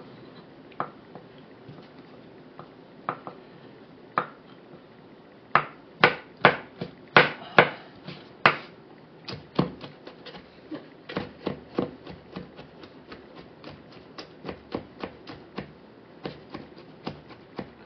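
Chef's knife chopping olives on a wooden cutting board. There are a few scattered knocks at first, then from about five seconds in a run of blade strikes on the board, sharpest for the next few seconds and then lighter and quicker.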